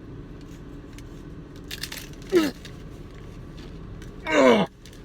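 A bite into a crunchy taco shell gives a brief crackle about two seconds in, followed by two short falling hums or groans from the eater, the second louder and longer. A steady low car hum runs underneath.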